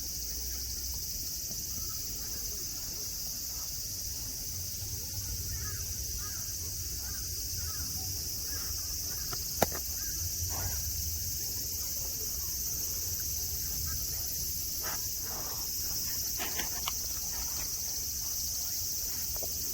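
Chorus of cicadas, a steady high-pitched drone. A single sharp click comes about ten seconds in, with a few faint short sounds after it.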